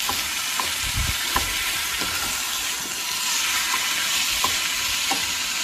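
Diced raw chicken and vegetables sizzling in hot oil in a pan as a wooden spatula stirs them, with light knocks and scrapes of the spatula against the pan every second or so.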